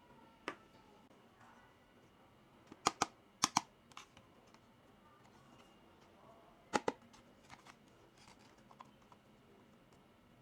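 Sharp clicks and taps of small plastic toy-kitchen pieces being handled and set down: a single click, two quick double clicks about three seconds in, then another double click near seven seconds, with fainter ticks between.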